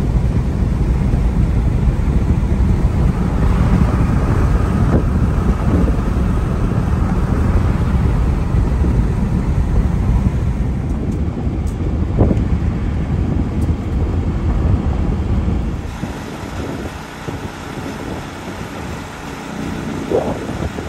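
A vehicle driving, with a steady low rumble of engine and road noise that becomes noticeably quieter about three-quarters of the way through.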